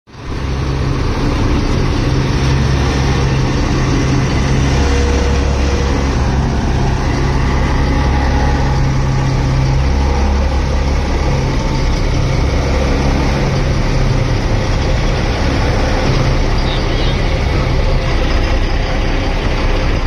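An old combine harvester's diesel engine running steadily, a low, even sound.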